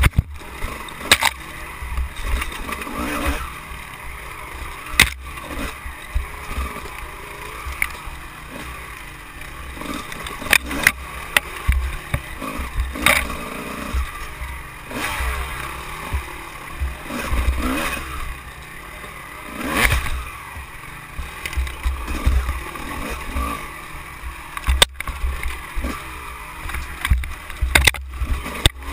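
Off-road dirt bike engine revving up and down as it climbs rough, rocky singletrack, heard from a camera mounted on the bike. Sharp knocks and clatter come with the bumps.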